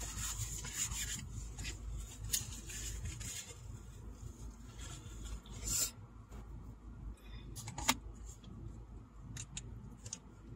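Rustling, scraping and scattered small clicks of food and packaging being handled inside a car, over a low steady hum. A sharp click about eight seconds in.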